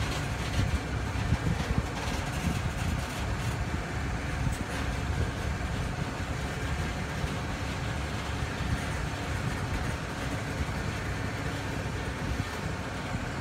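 Empty coal hopper cars of a freight train rolling slowly past: a steady rumble of steel wheels on rail, with scattered clicks and clanks in the first few seconds.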